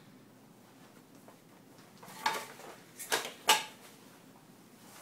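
Handling noise from a folding camping bed: a sharp clack a couple of seconds in, then two more about half a second apart.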